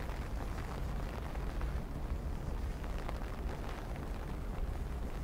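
Storm wind buffeting the microphone as a steady low rumble, with faint scattered ticks over it.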